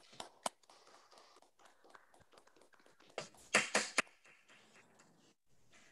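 Scattered hand clapping over a video-call audio feed, a few separate claps with a short loud flurry of several claps about three and a half seconds in.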